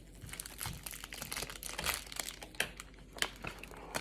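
Plastic packaging crinkling and crackling as it is handled and opened, in many small irregular clicks.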